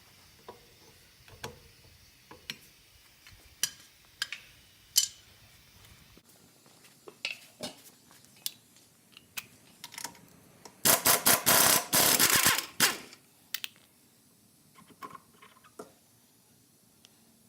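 Metal tools clinking and knocking while working on a car's wheel hub, then about two seconds of loud, rapid mechanical rattling from a tool, followed by a few light clicks.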